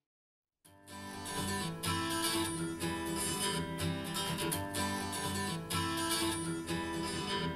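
Music played back through a portable Bluetooth speaker: a guitar-led track with strummed acoustic guitar. It starts after a brief silence at the very beginning.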